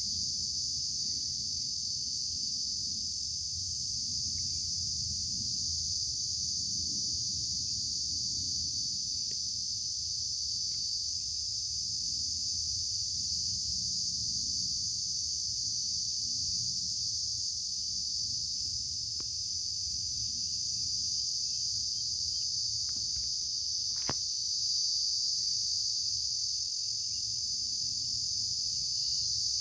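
A steady, unbroken high-pitched insect chorus, with a low rumble underneath and one sharp click about 24 seconds in.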